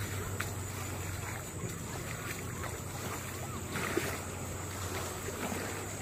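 Steady low drone of a motorboat engine, with a faint steady high whine and a few light ticks over it.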